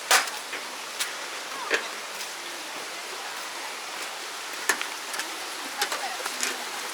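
Steady rush of flowing water, with a few sharp clicks and knocks over it, the loudest right at the start.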